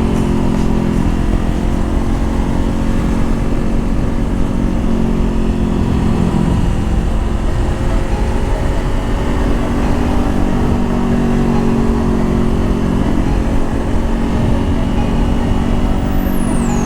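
Honda CBR500R's parallel-twin engine running under way, its pitch drifting up and down with the throttle, over a heavy low rumble. A thin high tone falls steeply in pitch near the end.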